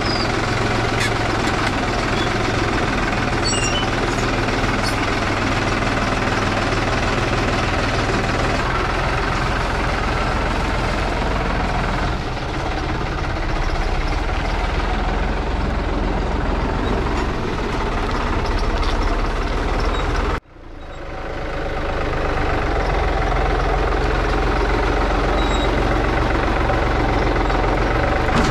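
New Holland compact tractor's diesel engine running steadily while it works the front loader. About two-thirds of the way through the sound drops out sharply and swells back over a second or two.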